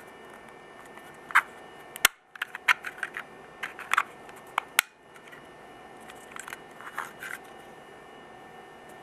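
Plastic fan parts being handled: a string of sharp clicks and knocks, thickest in the first half, softer and sparser around seven seconds in, over a steady background hum. The sound drops out twice, briefly.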